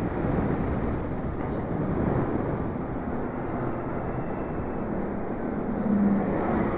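Steady rush of wind and road noise on the microphone of an electric motorcycle riding at speed; the bike's electric drive adds no engine note. A faint low hum grows slightly about six seconds in.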